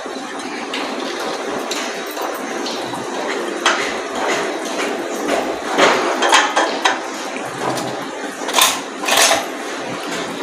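Glass dishes clinking and knocking as fried besan fritters are handled between a glass plate and a glass bowl of water, with several sharp clinks in the second half, over a steady hiss.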